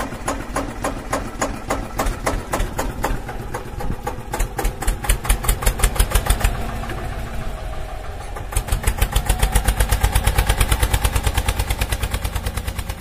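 Tractor engine running with a rapid, even thudding beat, growing louder about eight and a half seconds in.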